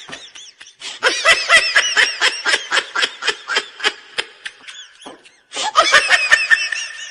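A person laughing hard in quick, repeated ha-ha pulses, in two runs with a short break about five seconds in.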